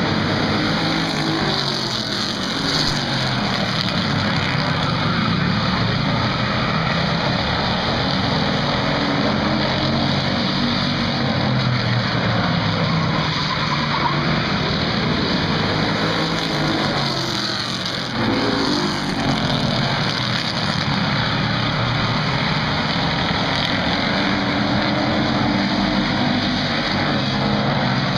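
A field of street stock race cars running laps of an oval, their engines a continuous loud drone that rises and falls in pitch again and again as cars go past.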